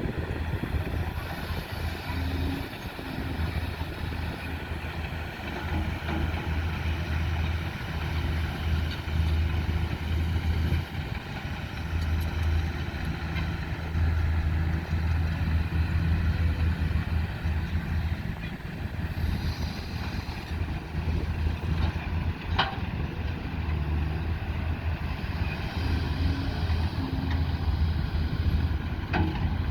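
Excavator engine running continuously, its level rising and falling as it works, with two sharp knocks, one about two-thirds of the way through and one near the end.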